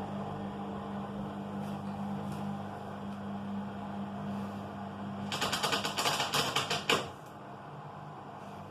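Washing machine running with a steady hum, then a fast rattling clatter of rapid clicks for nearly two seconds about five seconds in: the strange noise it makes during the wash. After the clatter the hum stops.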